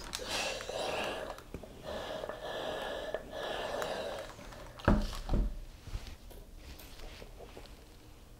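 Steam iron hissing in three bursts over the first four seconds or so, then a pair of thuds about five seconds in as the iron is set down, followed by faint rustling of cotton shirting being handled.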